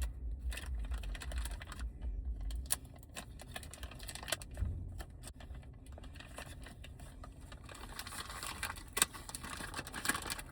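Hands tapping and handling a plastic packaging bag close to the microphone for ASMR: a run of light clicks and crinkles, with handling rumble during the first couple of seconds.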